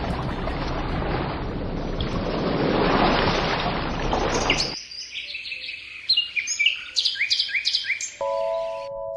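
Baby sound machine playing its sleep sounds: a steady hiss of white noise cuts off about halfway through, then recorded birdsong chirps, and near the end ringing chime notes of a lullaby begin.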